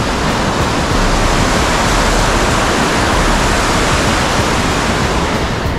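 Fast-flowing water rushing down a concrete-lined canal, a loud, steady rush of white water along the channel wall.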